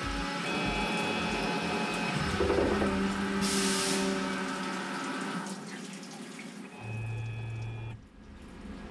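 Coolant spraying and splashing inside a CNC slant-bed lathe as it turns a steel spindle, under background music whose steady beat fades out about a second and a half in. A short hiss comes about three and a half seconds in.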